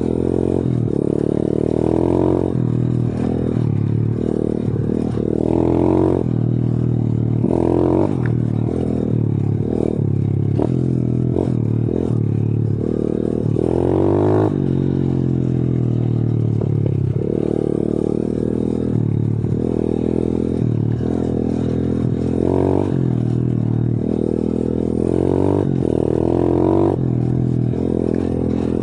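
125 cc pitbike's single-cylinder four-stroke engine running under load on the move, its revs climbing and dropping again and again as the throttle is worked, with a long fall in pitch about halfway through.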